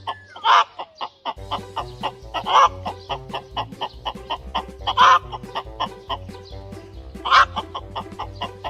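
A man imitating a rooster's call to lure a rooster, four short loud calls about two and a half seconds apart, over background music with a steady beat.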